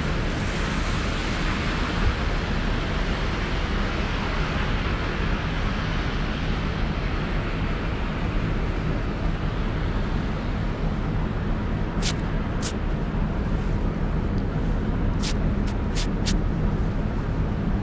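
City street noise: a steady rumble of traffic, with a few short, sharp, high-pitched sounds in the last third.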